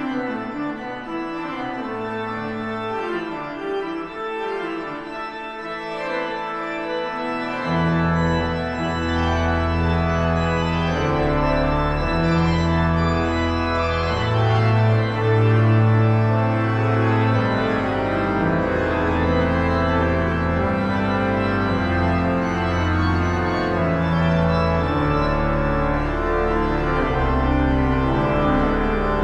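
Pipe organ (Ryde & Berg, opus 39) playing several moving lines at once. About eight seconds in, deep pedal notes come in and the music grows fuller and louder.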